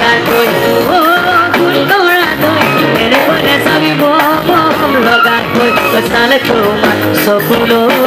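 A male vocalist singing a wavering melody live into a microphone over loud instrumental backing.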